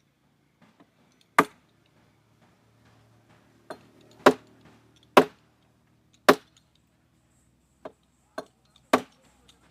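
Hammer blows on wooden timber: five hard, sharp strikes and a few lighter taps, spaced unevenly.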